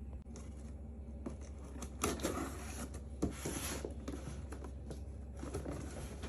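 A cardboard box being unpacked: tape being cut and torn, and packaging scraping and rustling, with a few light knocks.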